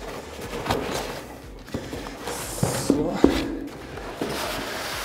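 Rustling and handling of a roll of painter's fleece wallpaper in its cardboard box, with a few light knocks around the middle.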